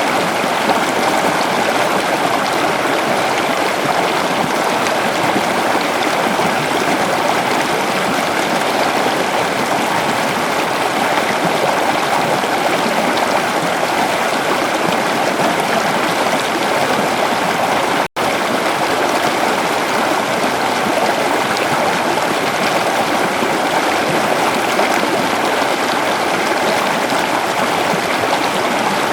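Waterfall: a steady, even rush of falling water, which cuts out for an instant about eighteen seconds in.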